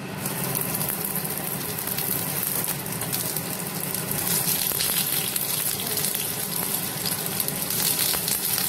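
Sliced onion sizzling in hot mustard oil in a kadai, with fine crackling; the sizzle starts suddenly as the onion pieces hit the oil and then runs steadily.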